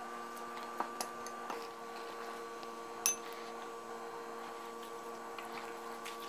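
Soft handling noise of a basting brush and metal spoon spreading oily marinade over fish in a plastic container, with a few light clicks and one sharp clink of the utensils about three seconds in. A steady hum with several fixed tones runs underneath.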